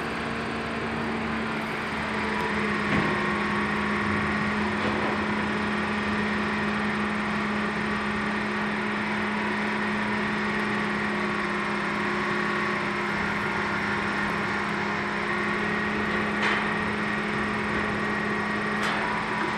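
Diesel-powered rubber-tired gantry crane running steadily, a constant engine hum with a steady whine over it, as it hoists a highway trailer with its grapple arms. A few light clanks come through, one about three seconds in and two near the end.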